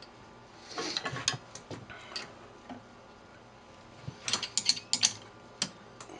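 Metal lathe scroll chuck being tightened with its chuck key, the jaws expanding into a drilled recess in a wooden blank: two short runs of clicking and rattling, about a second in and again around four to five seconds in.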